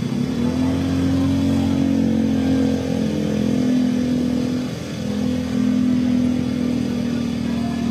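Bus's basuri (telolet) multi-tone air horn sounding in long held notes, breaking off briefly about five seconds in before sounding again.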